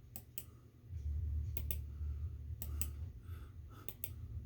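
Yu-Gi-Oh! trading cards being handled and flipped through, giving sharp short clicks, mostly in close pairs, over a steady low hum.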